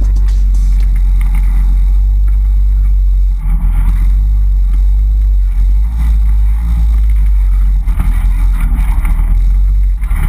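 Polaris RZR side-by-side's engine running, a steady low rumble.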